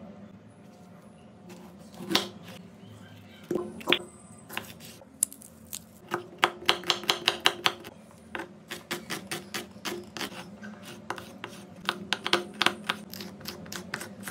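Kitchen knife chopping vegetables (red onion, red bell pepper) on a wooden cutting board: a couple of single knocks, then fast runs of knife strokes hitting the board, several a second.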